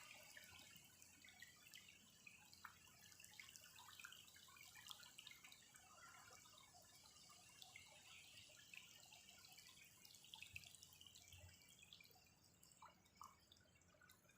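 Faint patter of rain: many small, scattered drops ticking, growing sparser near the end.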